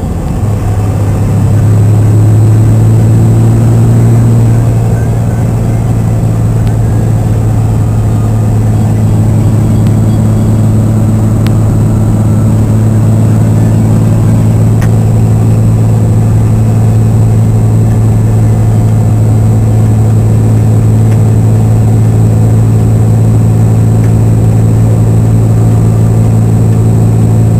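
A 1999 Dodge Ram 3500's 5.9-litre Cummins turbo-diesel straight-six, heard from inside the cab under way. Right at the start the engine note drops lower after a gear change, then it holds a steady, even drone at cruising speed.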